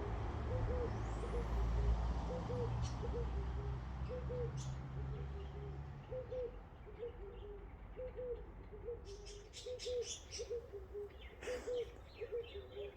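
A dove cooing over and over, a short low call repeated about once a second. A low rumble underneath fades out about halfway, and short high chirps come in near the end.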